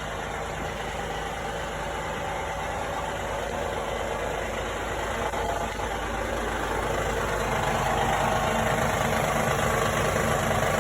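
2016 Honda Odyssey's 3.5-litre V6 idling cold with the knocking sound it makes when cold. The engine noise grows gradually louder over the second half.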